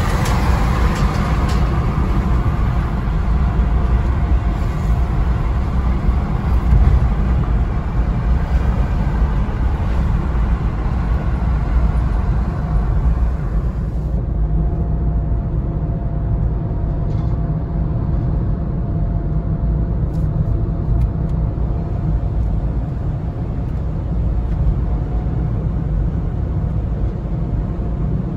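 Steady road noise inside a moving car at highway speed: tyre and engine rumble, strongest in the low end. It turns duller about halfway through, with a faint steady hum.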